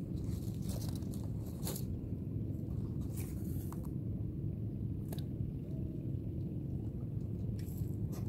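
Steady low wind rumble on the microphone, with a few short sharp clicks spread a second or two apart.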